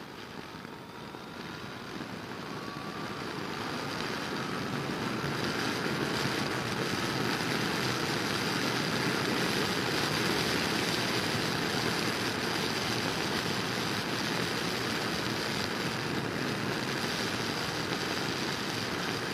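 Heavy wind rush and motorcycle engine noise picked up by a helmet-mounted microphone as the bike accelerates to highway speed, around 120 km/h into a strong headwind. The noise swells over the first several seconds, then holds steady, with a faint rising engine whine near the start.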